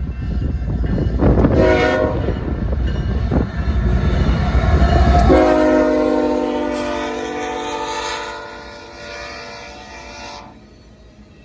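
A train rumbling past, with a short blast of a diesel locomotive's air horn about a second and a half in. The rumble drops away around five seconds in, where a long horn blast begins; it fades out shortly before the end.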